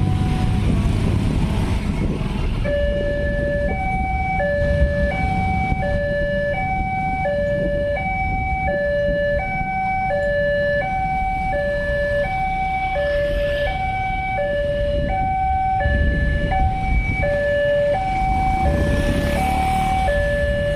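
Railway level-crossing warning alarm starts about three seconds in: an electronic two-tone chime alternating low and high at about two notes a second, the signal that a train is approaching and the barriers are closing. A steady rumble of road traffic runs underneath.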